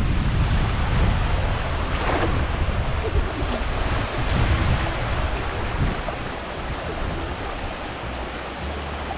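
Wind buffeting the microphone over the steady rush of river water spilling over a low weir.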